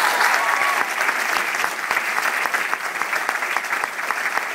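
Audience applauding: dense, steady clapping from a full house that eases off slightly toward the end.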